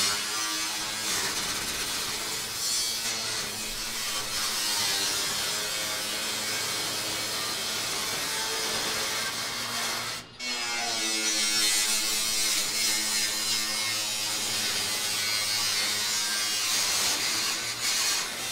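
Electric power saw cutting through sheet-metal barn siding: a steady motor buzz with a harsh cutting noise. It stops for a moment about ten seconds in, then starts again.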